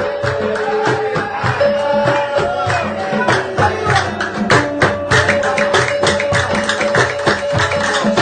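Egyptian simsimiyya folk music: the plucked simsimiyya lyre's melody over a quick, steady hand-percussion beat.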